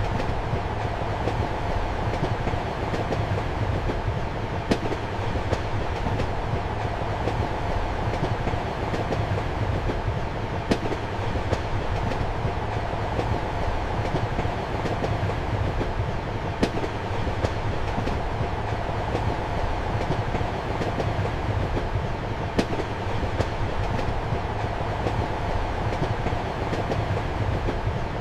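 Passenger train running steadily, heard from inside a compartment: a constant rumble with sharp wheel clicks over the rail joints every second or two, and a louder click about every six seconds.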